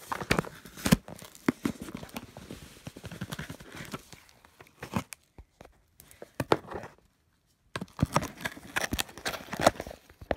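Cardboard shipping box being handled and opened: irregular tearing, scraping and crinkling with sharp knocks of cardboard, and a short silent gap about seven seconds in.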